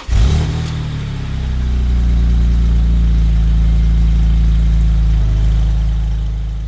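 A car engine catches with a loud burst, then settles into a steady, deep-toned idle.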